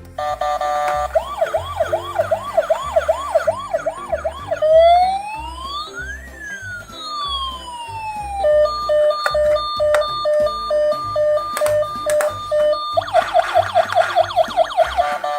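Electronic emergency-vehicle siren cycling through patterns: a fast repeating yelp, then one slow wail rising and falling, then an alternating two-tone hi-lo about halfway through, and the fast yelp again near the end. Background music with a steady bass line runs underneath.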